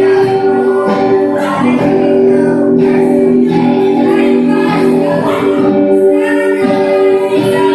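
Girls singing a song into a microphone over music, with long held notes.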